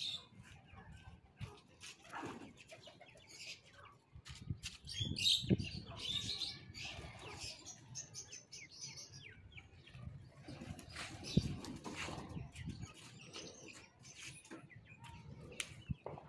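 Young francolins fluttering and scurrying as they are chased, with scattered short wing flaps, faint chirps and footsteps scuffing on concrete.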